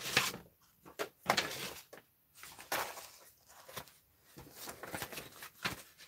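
Paper and card rustling and scraping in a series of short bursts as loose pieces of cardstock are rummaged through and handled.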